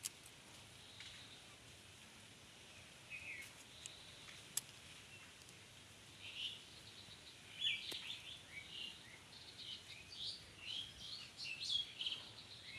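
Small birds chirping in short, high calls that come thicker in the second half, over a faint steady hiss, with a few sharp clicks.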